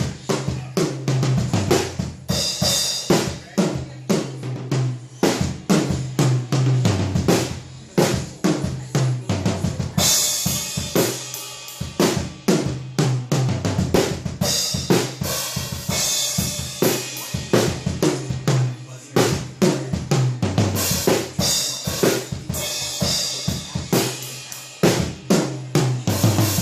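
Acoustic drum kit being played in a fast, busy groove of kick and snare hits, the heads damped with Moongel gel pads. A bright cymbal wash rings out over the hits several times.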